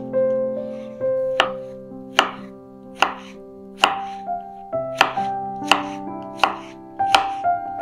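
Knife chopping on a cutting board, one sharp cut about every three quarters of a second, over soft piano background music.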